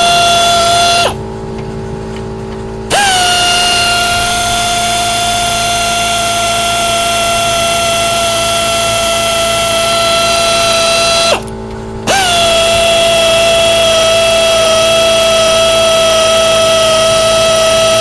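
Pneumatic air wrench running in long, steady whining bursts, spinning out the cylinder head bolts on a 4 hp Briggs & Stratton engine. It stops briefly about a second in and again about eleven seconds in, each time starting up again.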